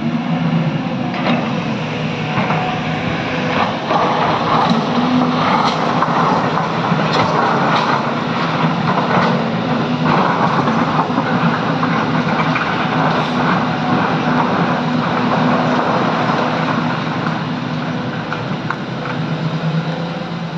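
Diesel engine of a SANY hydraulic excavator running steadily under working load, with scattered knocks and clatter on top.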